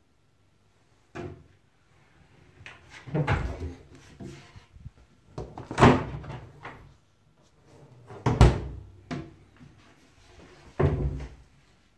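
An under-counter fridge's door and the wooden kitchen cabinet doors around it being opened and shut. This gives a series of knocks and thuds, the loudest about six and eight and a half seconds in.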